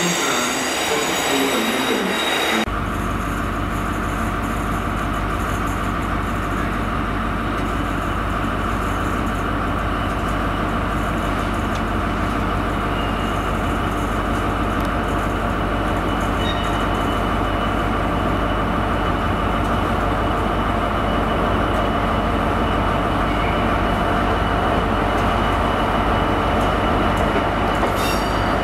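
For the first couple of seconds, tank wagons rolling past with high wheel squeal. Then a steady diesel engine drone as a Class 66 freight locomotive, with its two-stroke V12, draws slowly in at the head of its wagons.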